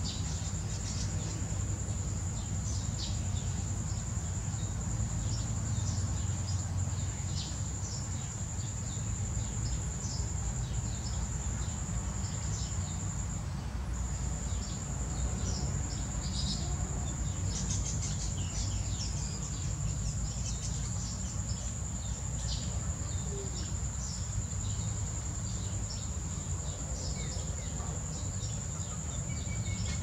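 A continuous high-pitched insect trill drones steadily, breaking off for a moment about 14 seconds in. Scattered short bird chirps and a low rumble sit underneath it.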